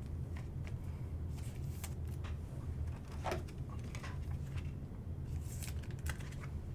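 Trading cards being handled: faint scattered rustles and light taps of cards and plastic sleeves, over a low steady hum.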